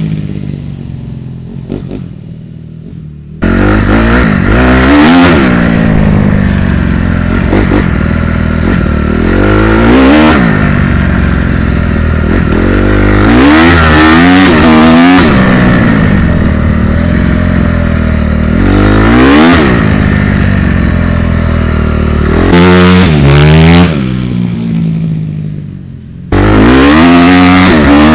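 2016 Honda CRF250R's stock four-stroke single-cylinder engine revving under way, its pitch climbing and falling again and again as the bike accelerates and shifts gears. The engine drops to a quieter, lower note at the start and again near the end, then comes back loud all at once.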